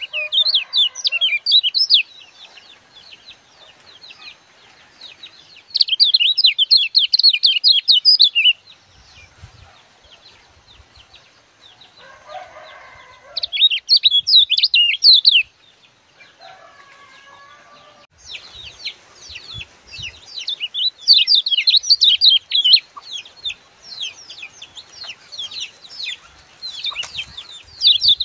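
Caged kecial kuning songbird singing loud bursts of rapid, high chirping trills. The first bursts last about two seconds each, with pauses of several seconds between them; from about two-thirds of the way through the song runs almost without a break.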